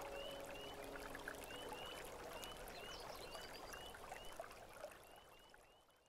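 A chorus of spring peepers, short rising peeps repeating over and over, above the steady rush of a shallow stream. Everything fades out near the end.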